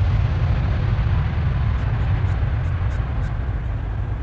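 Boeing 777-9X's twin GE9X turbofan jet engines at takeoff thrust as the airliner lifts off: a deep rumbling roar that slowly fades as it climbs away.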